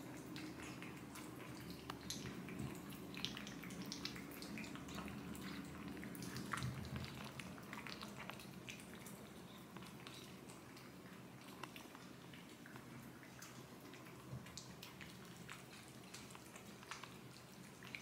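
Two cats licking a Churu paste treat from raised bowls: faint, irregular wet licking and smacking clicks.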